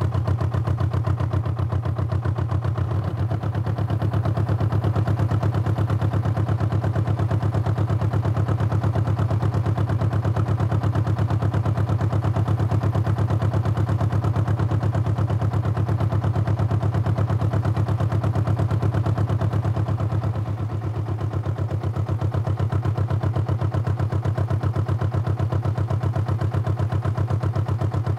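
An engine running steadily at low speed, with a fast, even pulse and a strong low hum; it eases slightly for a moment about three-quarters of the way through.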